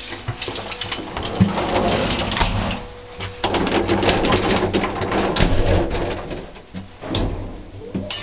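Small lift car rattling and clattering as it runs, with a steady low hum underneath.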